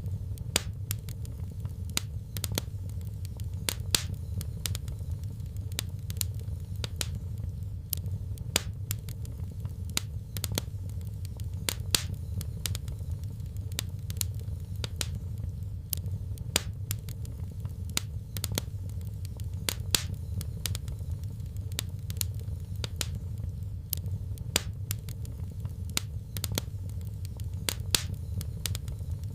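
Fireplace fire crackling: irregular sharp pops and snaps, a few louder than the rest, over a steady low rumble.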